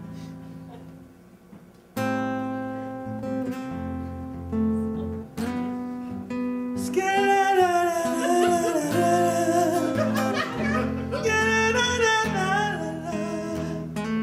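Acoustic guitar playing the intro to a love song, soft at first and louder from about two seconds in; about halfway through a man starts singing over it.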